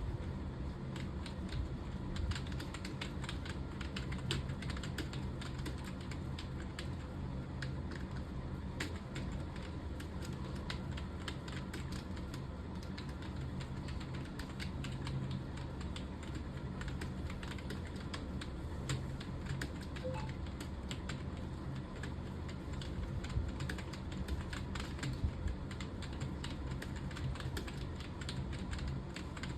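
Fast, continuous typing on a computer keyboard: a steady stream of irregular key clicks over a low steady hum.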